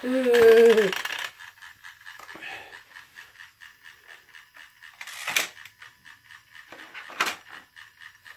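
A voice gives a short pitched call in the first second. Then the plastic toy train set makes a rapid run of steady clicking, with two sharper clacks in the second half.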